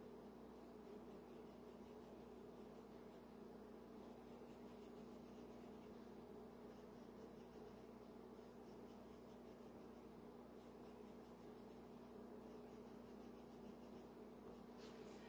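Faint scratching of a colored pencil on paper: short quick strokes in several runs as wheel spokes are drawn, over a steady low hum.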